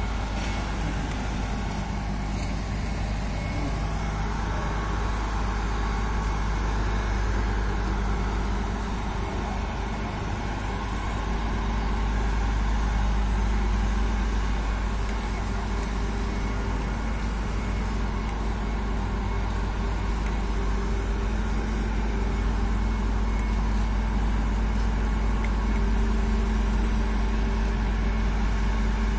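Diesel engine of a mobile boat hoist (travel lift) running steadily as it drives with a catamaran slung beneath it, a continuous low drone.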